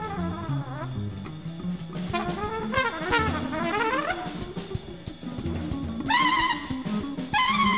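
Improvised jazz trio: a trumpet plays phrases that bend and slide up and down in pitch over bass and drum kit. About six seconds in the trumpet comes in louder with a wavering note, and again just before the end.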